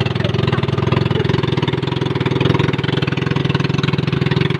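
Engine of a motorized outrigger boat (bangka) running steadily under way, with a fast, even pulse.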